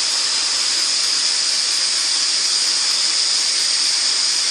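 Nex Flow high-force air jet blowing compressed air with its back end open, so the amplified air flows: a loud, steady, high hiss.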